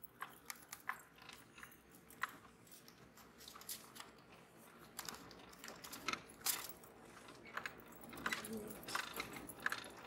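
Irregular clicks, knocks and crunching from a vehicle rolling slowly over a rough dirt track, with tyres on stones and dry ground and the cab rattling.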